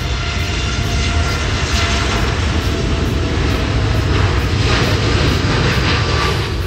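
Jet airliner's engines running loud and steady, a broad rumble with a faint whine on top.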